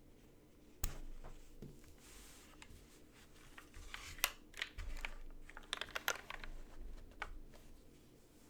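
Typing on a Matrix 2.2 custom mechanical keyboard with BSUN Holy Panda tactile switches, GMK keycaps and an aluminium plate. A single keystroke comes about a second in, then scattered presses and a quicker burst of keystrokes in the middle that stops near the end.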